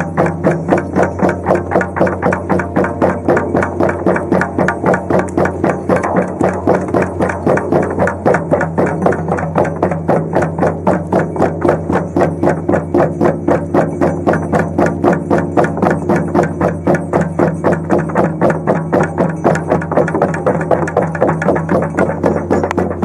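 Shamanic frame drums (bubens) beaten together in a fast, even beat, over a steady low drone.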